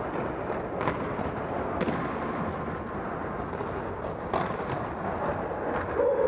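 Soccer ball knocked about by players' feet in an indoor game on a gym floor: three sharp knocks, the second a second after the first and the third about two and a half seconds later, over a steady noisy hall din.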